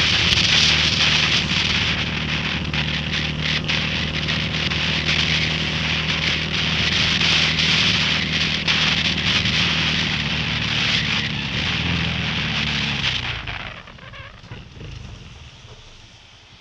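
Honda Grom MSX125's single-cylinder 125 cc four-stroke engine running steadily at speed, heard from on board under loud wind and wet-road rush. About thirteen seconds in the throttle closes and the engine note and wind noise drop away as the bike slows.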